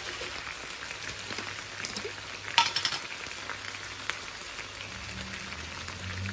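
Chicken and tikka masala sauce sizzling and spitting in a frying pan on the hob, a steady crackle with a sharp clink about two and a half seconds in. A low hum comes in about five seconds in.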